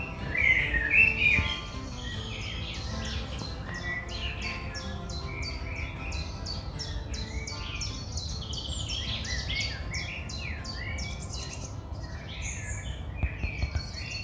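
A chorus of small birds chirping and singing, with rapid repeated chirps throughout and a burst of louder calls in the first second or so, over faint sustained music.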